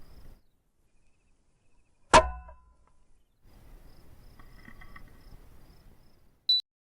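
A single sharp shot from a .22LR rifle firing subsonic rounds, with a short ringing tail, about two seconds in. Crickets chirp faintly before and after it.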